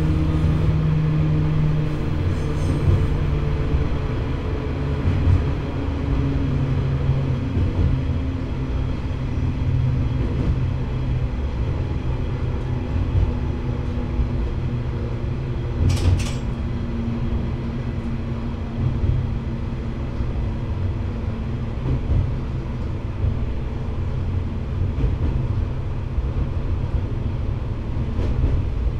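KiHa 120 diesel railcar running along the line, its engine note slowly falling over the first half, over a steady low rumble of wheels on rail. A single sharp click comes about 16 seconds in.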